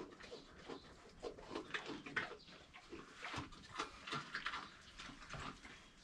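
A pig grunting over and over in short, uneven grunts, several a second.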